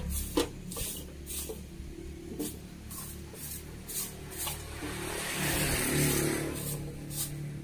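Broom sweeping dirt and leaf litter on bare ground, a series of short, irregular scratchy strokes. A low rumble runs underneath and swells to its loudest about five to six seconds in.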